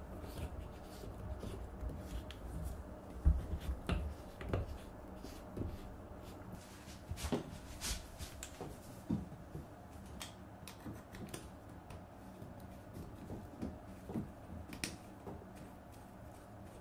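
Clicks, taps and light rubbing of hands handling and twisting metal shower-hose fittings on a mixer tap, with a few louder knocks about three to four seconds in.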